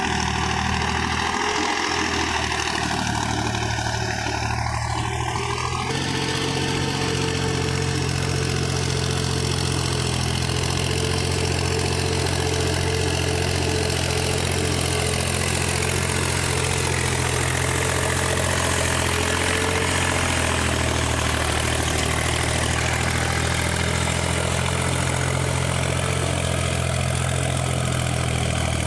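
Mahindra tractor's diesel engine running steadily, its tone changing about six seconds in.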